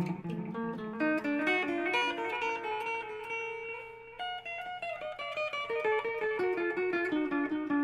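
Electric guitar played through a Caline Ghost Rain reverb-delay pedal: quick picked single-note lines whose notes hang on in echo and reverb trails, with a brief lull about four seconds in.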